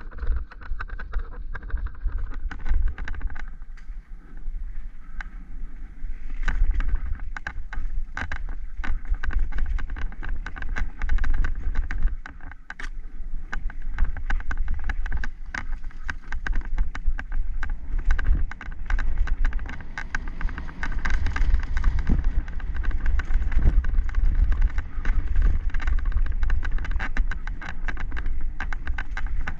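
Mountain bike descending a dirt forest singletrack: tyres running over dirt and roots, with many sharp rattles and knocks from the bike over rough ground. A constant low rumble from the ride's vibration and wind runs underneath.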